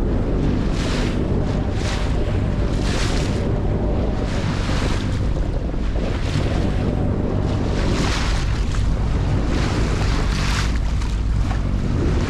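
Wind buffeting the microphone at the bow of a sailboat under way, with water rushing and splashing along the hull in repeated surges, over a low steady hum.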